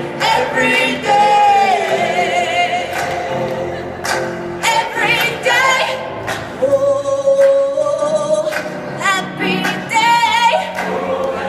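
Voices singing a song with musical accompaniment. There are long held notes with vibrato and short sung phrases.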